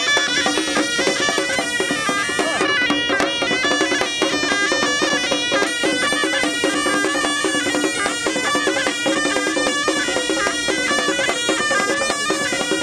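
Moroccan ghaita (shawm) playing a reedy melody that steps from note to note, over double-headed drums beaten with sticks in a steady beat.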